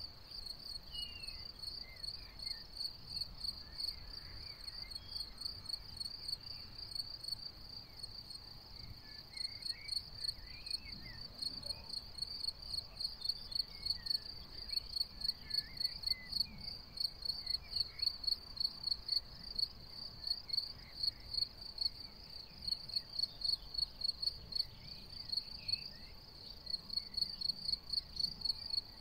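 Cricket chirping in a steady, even rhythm, about two high-pitched chirps a second, growing louder about a third of the way in.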